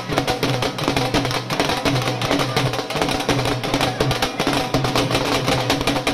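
Wedding-band drums, dhol and a bowl-shaped drum beaten with sticks, playing a fast, dense, unbroken beat.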